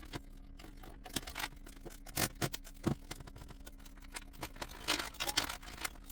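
Scattered light clicks and scrapes of desktop computer parts being handled, with a faint steady hum underneath.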